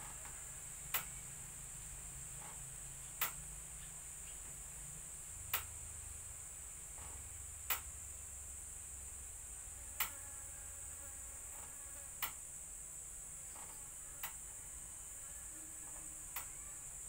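Faint, steady high-pitched insect drone, like crickets or cicadas, with a low hum under it. A sharp click comes about every two seconds, eight times.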